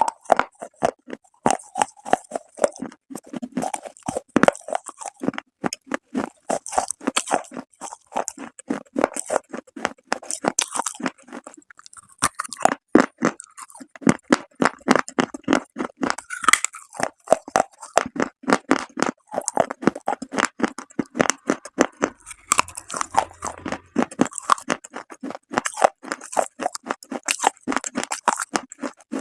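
Close-miked chewing of hard, brittle baked clay: a rapid, dense run of crackling crunches between the teeth, with a brief lull about twelve seconds in.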